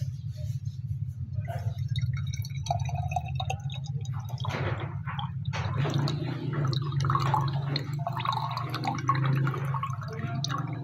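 Boiled lemon water being strained, trickling and dripping. The pouring starts about four seconds in, over a steady low hum.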